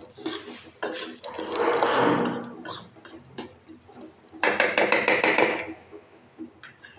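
Metal spoon clinking and scraping against a pan while stirring instant noodles in sauce. There is a louder scraping swell about two seconds in and a quick run of clatter about four and a half seconds in that lasts just over a second.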